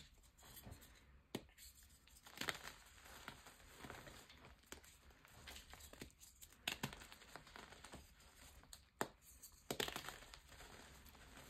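Blocks of reformed gym chalk squeezed and crumbled between the fingers: soft, grainy crunching and crackling, broken by several sharper snaps as pieces give way.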